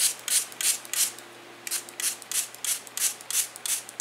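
Watercolor paint being rubbed and mixed by hand in a metal palette well. Quick scratchy rubbing strokes come about three a second, with a brief pause about a second in.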